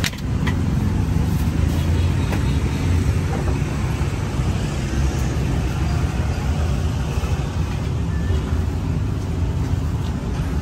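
Street traffic: a steady low rumble of passing vehicles, with a few sharp knocks in the first seconds.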